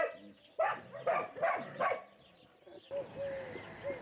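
Puppies yapping: a quick run of four short, high barks about a second in, then a few soft whining calls near the end.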